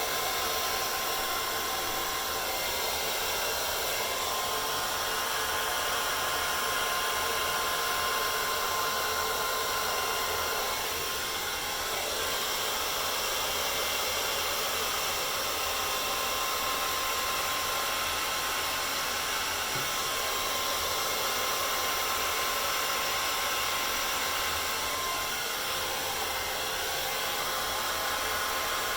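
Handheld hair dryer running steadily, a rush of air with a faint steady whine.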